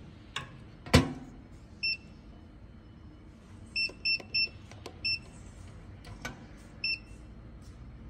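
Electronic hotel room safe: its steel door shuts with a heavy thud about a second in, then the keypad gives short high beeps one at a time as a code is keyed in to lock it, with a few small clicks between.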